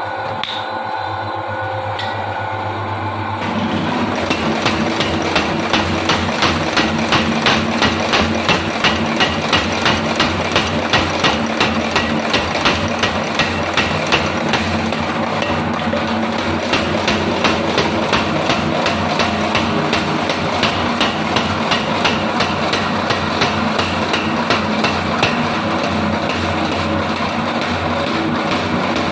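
Mechanical power hammer forging an axe. The machine's motor hums at first, then about three seconds in the hammer starts striking in a fast, even rhythm of blows that carries on to the end.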